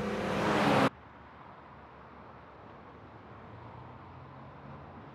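Two sports car engines, a Nissan S30 Fairlady Z and a Porsche 911 Turbo, running hard at high revs for about the first second, then cutting off suddenly to a faint low hum for the rest.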